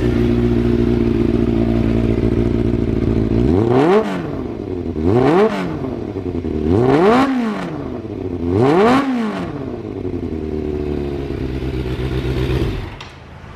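Kawasaki ZRX400-II inline-four engine breathing through an aftermarket muffler, idling, then blipped four times so the revs rise sharply and fall back each time, settling to idle and shutting off near the end.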